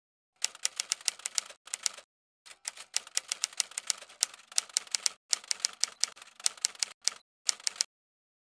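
Typewriter keys clacking in quick runs of about seven strikes a second, broken by short pauses, as of words being typed out one after another.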